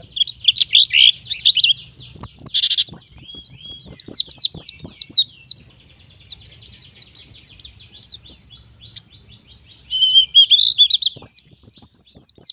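White-eye (pleci) singing a rapid, high-pitched twittering song of quick chirps and sweeping notes, eases off to a softer stretch around the middle, then picks up again with a brief lower warbling run.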